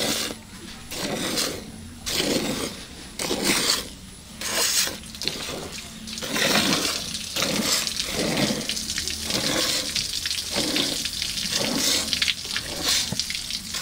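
Hand-milking a cow: jets of milk squirting from the teats into a metal bucket with a rhythmic hissing splash. The strokes come as separate squirts about once a second at first, then run together into a fuller, more continuous rhythm about halfway through.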